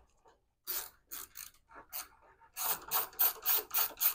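Socket ratchet clicking as it is worked back and forth on an 11 mm fastener to break it loose. A few separate clicks come first, then from just past halfway a fast, even run of about five clicks a second.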